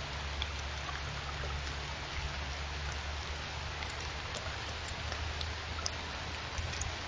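Steady rain hiss with scattered faint drop ticks, over a low steady hum.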